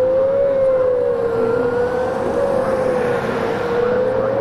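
Outdoor tornado warning siren sounding a steady wail whose pitch wavers slowly up and down about every two seconds, over a low rumble of wind and vehicle noise.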